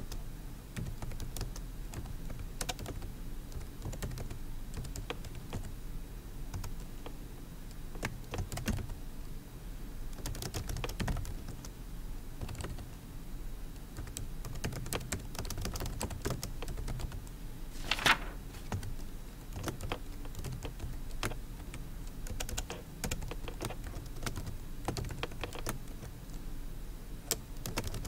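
Typing on a computer keyboard: an uneven, steady run of key clicks, with one noticeably louder keystroke about two thirds of the way through.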